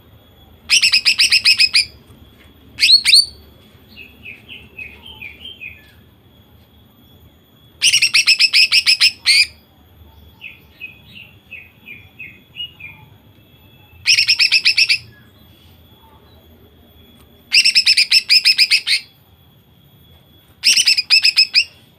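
Female cucak ijo (greater green leafbird) in 'nembak' song: five loud bursts of rapid-fire repeated notes, each about a second long, every few seconds. Between the bursts come one short sharp call and softer twittering.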